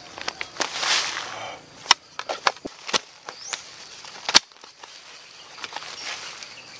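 Rustling of leaves and soil with a series of sharp snaps and knocks as wild lempuyang (Zingiber zerumbet) rhizomes are pulled from the ground and broken off by hand; the loudest snap comes a little past four seconds in.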